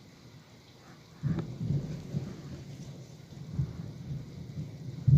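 Thunder booming over steady pouring rain. A sudden loud clap about a second in rolls on as a low rumble that swells a few times, and a louder boom breaks right at the end.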